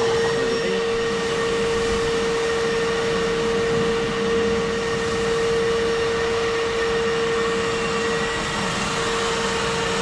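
DeWalt 38-litre wet and dry vacuum running in blower mode, its motor holding a steady whine over a rush of air.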